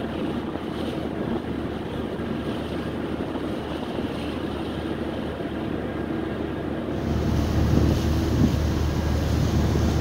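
Steady rush of wind on the microphone and sea water streaming past a moving ship's hull, over a low, constant hum from the ship. About seven seconds in the wind noise grows louder.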